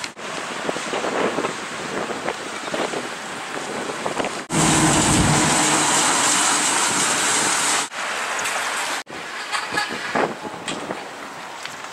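Wind blowing on the microphone, broken by hard cuts. The loudest part, from about four and a half to eight seconds in, is a fire engine driving past with its engine running. Wind noise and scattered light clicks follow.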